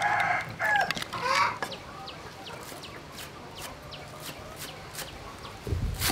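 Chickens clucking for the first second and a half, then a quieter stretch. Near the end a cleaver starts chopping green onions on a wooden board with dull thuds.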